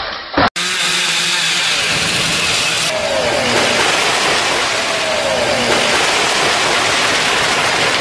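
Chainsaw engine running steadily under a loud hiss, its pitch sliding down twice.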